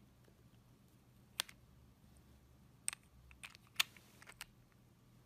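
Several short, sharp plastic clicks and taps, about five spread over a few seconds, as i12 TWS wireless earbuds are handled and seated into their plastic charging case.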